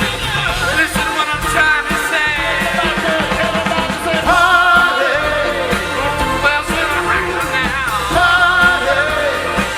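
Live rock band playing an upbeat song: a lead melody that wavers in pitch, over a steady beat.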